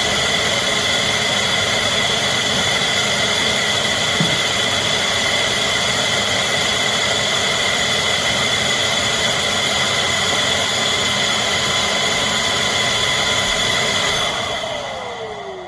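CHEBIO V18 cordless stick vacuum cleaner running, a steady airy rush with a high-pitched motor whine. About fourteen seconds in it is switched off, and the motor winds down in a falling whine.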